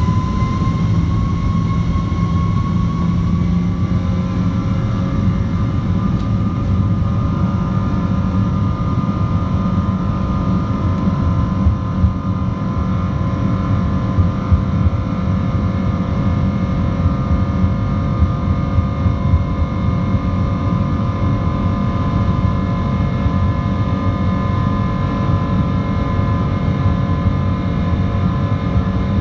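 Rolls-Royce Trent 800 turbofan on a Boeing 777 running at low taxi power, heard from inside the cabin: a steady whine of several tones over a low rumble, its pitch creeping up a little in the first few seconds.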